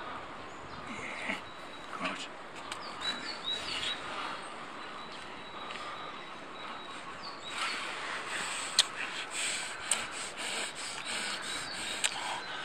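A small bird chirps in quick series of short falling notes in the first few seconds. From about seven and a half seconds in come crackling rustles of handling, with a few sharp clicks.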